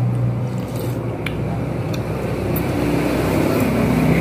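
Steady low rumble of background road traffic, with a few faint clicks of forks and spoons against bowls as people eat noodles.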